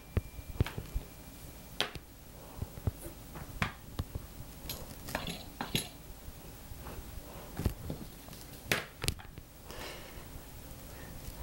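Metal rolling pin rolling out fondant on a silicone mat: quiet, irregular knocks and taps as the pin is set down and pushed across the paste.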